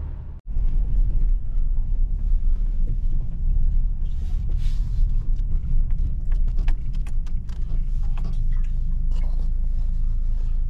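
Steady low road rumble inside a moving car's cabin, engine and tyres droning at highway speed. The sound cuts out for an instant just after the start, and from the middle on there are scattered clicks and knocks of the phone being handled.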